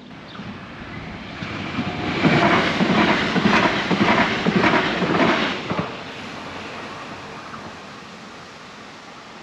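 A train passing the level crossing: the sound swells, is loudest for about four seconds with a regular clatter of the wheels over the rails, then falls off and fades away.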